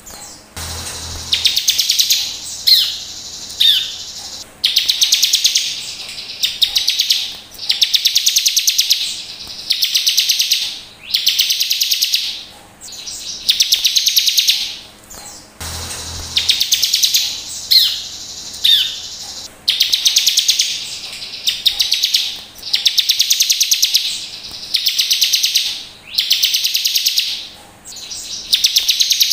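Bar-winged prinia (ciblek) singing loud, rapid, high trilled phrases about a second long, one every couple of seconds. The same run of phrases repeats about halfway through, as in a looped recording.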